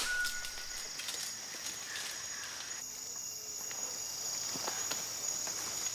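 Rainforest insects buzzing in one steady, high-pitched drone, with a few faint rustles of footsteps in leaf litter near the end.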